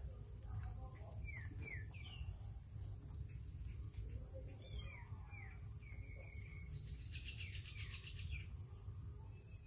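Outdoor animal ambience: short bird chirps, several of them, over a steady high-pitched insect drone and a low rumble. A quick run of ticking chirps comes about seven seconds in.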